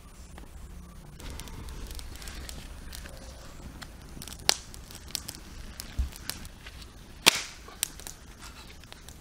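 Small kindling fire of dry split wood crackling faintly, with a few sharp wood snaps, the loudest about seven seconds in.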